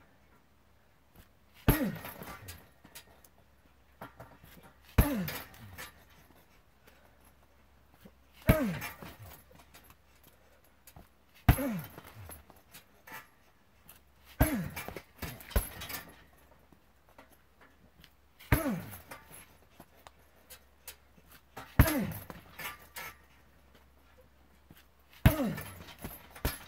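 Heavy punching bag struck hard nine times, roughly every three seconds. Each hit is a sharp thud, followed by a brief falling ring and a light rattle from the bag's metal hanging hardware.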